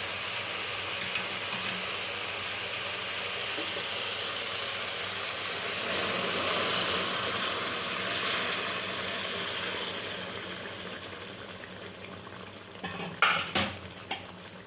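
Pan of fried onion and tomato sizzling as hot water goes into it, the hiss swelling and then dying down over the last few seconds. A few sharp clinks of a utensil against the pan come near the end.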